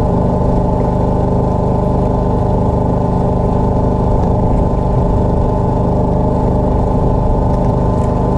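A small engine running steadily at a constant speed, with an even, unchanging pitch.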